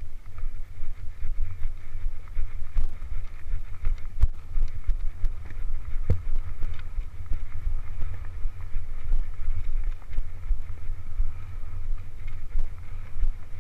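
Wind buffeting and low rumble on a head-mounted camera during a horseback ride, the level rising and falling with the horse's movement. A few sharp knocks stand out, the loudest about six seconds in.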